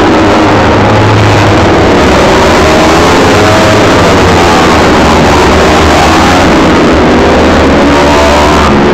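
A pack of Kawasaki Ninja 250 four-stroke race bikes passing through a corner close by, loud, many engines revving up and down over one another.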